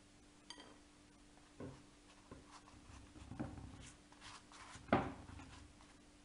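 A spatula scraping and knocking against a pan as the layered flatbread is lifted, with a sharp clack about five seconds in, over a faint steady hum.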